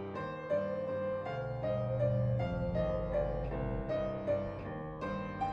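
Background music: a gentle piano melody over sustained chords.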